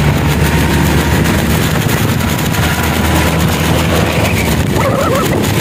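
Steady noise of a motor scooter riding in heavy rain: wind on the phone's microphone over the running engine, with raindrops hitting the phone.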